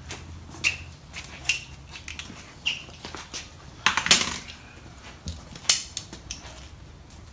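Metal tools and hardware clinking and clattering as they are handled, a string of sharp separate knocks, the loudest cluster about four seconds in.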